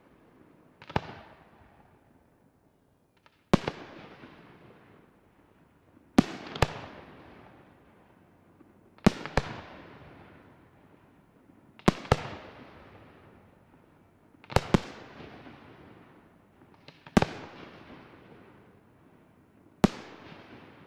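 Aerial firework shells bursting in a steady sequence: about eight sharp bangs roughly every two and a half seconds, several of them as quick doubles. Each bang is followed by a rumbling echo that dies away.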